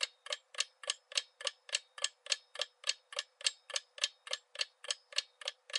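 Clock-ticking sound effect of a quiz countdown timer, steady and even at about three and a half ticks a second.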